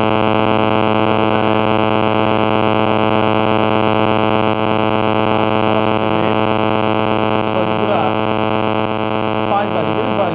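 Loud, steady electrical buzz of mains hum, with a dense stack of overtones, in the audio feed; it drowns out the talking voice, which comes through only faintly beneath it.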